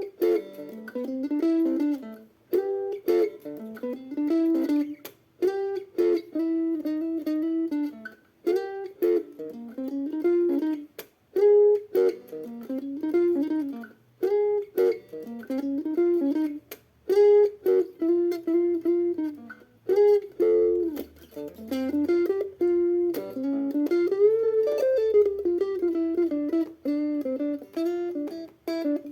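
Solo melody on a plucked string instrument such as a guitar, played in short phrases of picked notes, some bending or sliding in pitch.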